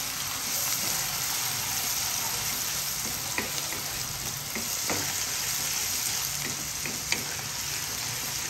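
Chopped onion, garlic and ginger frying in hot oil in a kadai, sizzling steadily while a wooden spatula stirs them, with a few faint clicks.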